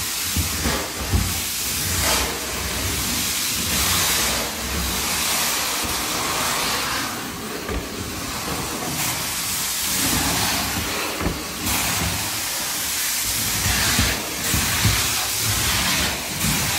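Carpet-cleaning extraction wand sucking rinse water off a wet linoleum floor: a loud, steady rush of vacuum suction that swells and eases every few seconds as the wand is worked back and forth, with a few light knocks.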